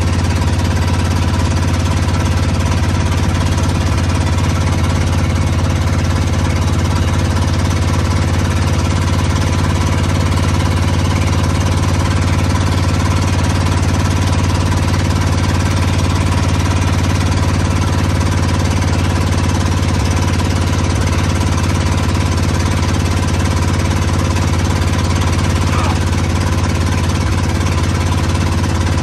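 1936 Ford truck's flathead V8 running loud and open, with no exhaust system, as the truck drives down the road; a steady, heavy rumble with a rapid pulsing beat.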